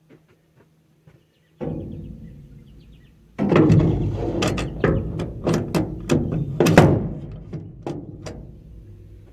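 Steel crimper drive shaft of a New Holland 495 haybine being pushed through into its bearings: a single thump, then about five seconds of metal clanks and knocks with ringing as the shaft slides through, fading near the end.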